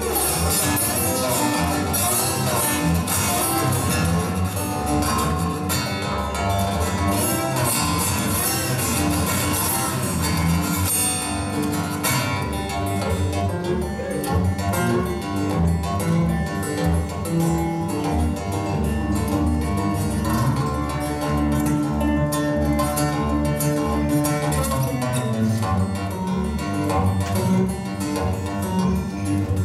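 Solo acoustic guitar played as an instrumental, fingerpicked, with bass notes under a busy run of upper notes; the playing thins out and calms after about twelve seconds.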